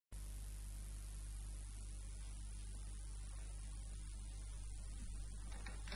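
Faint, steady electrical mains hum with a background hiss, unchanging throughout.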